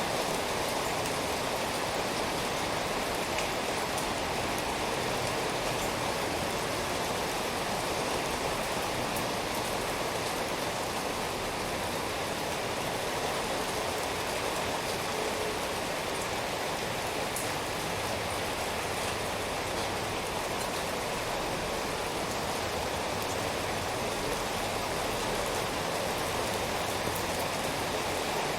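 Steady rainfall, an even continuous hiss with faint scattered drops, without breaks or swells.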